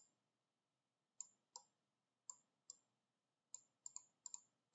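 Faint, irregular computer mouse clicks, about ten sharp clicks coming closer together near the end, against near silence.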